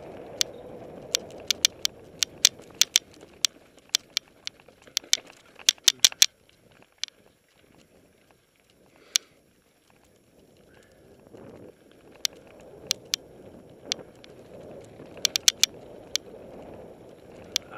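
Mountain bike rolling down a dirt singletrack: rumbling tyre noise with many sharp, irregular clicks and rattles as the bike jolts over bumps. It goes much quieter for a few seconds in the middle, then the rumble and rattling pick up again.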